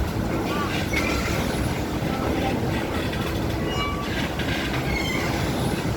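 Steady heavy rumble of a vehicle in motion, with a few faint high squeaks now and then.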